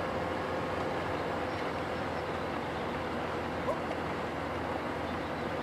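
Steady rushing outdoor noise of wind and water on a flatwater kayak racecourse while crews paddle. A short click with a brief rising chirp comes about three and a half seconds in.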